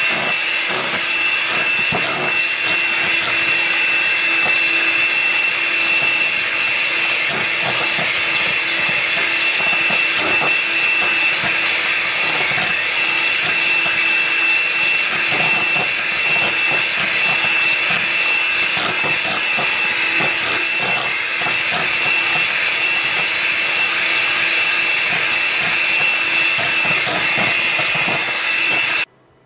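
Electric hand mixer running steadily at speed, its beaters whipping egg whites and sugar in a mixing bowl, with a constant high whine from the motor. It cuts off abruptly just before the end.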